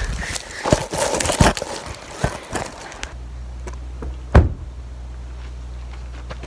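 Phone rubbed and knocked about while carried through grass, rustling and clothing brushing against the microphone. After a cut, a low steady rumble with one hard thump about four and a half seconds in, a car door being shut.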